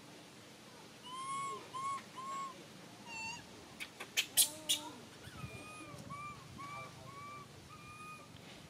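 Baby macaque giving short, arched, whimpering coo calls over and over, a few at a time. Three or four sharp clicks come about four seconds in.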